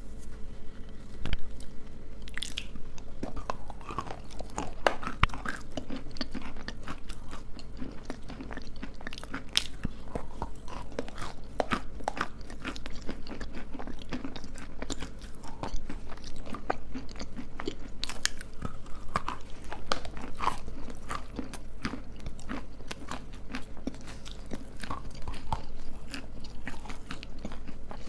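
Close-miked biting and chewing of hard, crunchy pieces: a steady run of sharp, irregular cracks and crunches.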